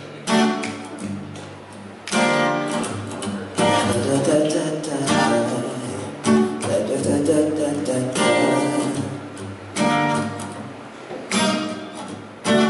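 Acoustic guitar playing a slow song intro. Chords are struck about every second and a half and left to ring out between strikes.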